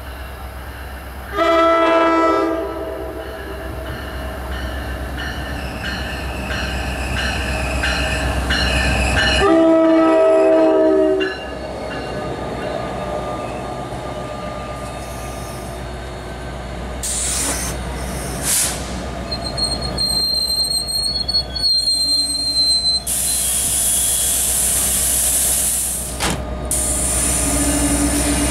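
NJ Transit locomotive-hauled passenger train arriving: its horn sounds twice, a blast of about a second and then a longer one of nearly two seconds. The locomotive and multilevel coaches then roll past, with thin high wheel squeal in the last third as the train slows for the stop.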